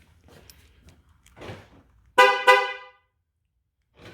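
Two short horn chirps from a 2011 Ford Escape, in quick succession, a few tenths of a second apart.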